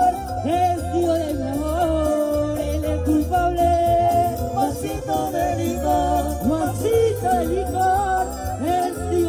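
Live cumbia band playing: a sliding, bending melody line over a steady, pulsing bass beat.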